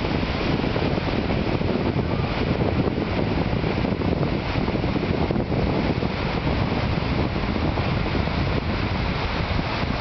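Steady wind noise buffeting the microphone, mixed with the continuous wash of small breaking surf.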